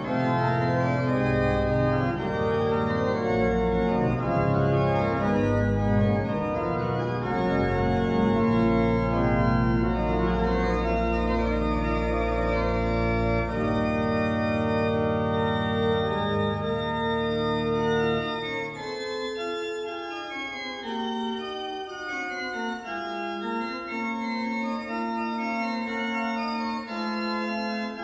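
1755 Johannes Hahn pipe organ playing slow polyphonic music, several sustained lines moving against one another. About two-thirds of the way through, the bass drops out, leaving only the upper voices, thinner and quieter.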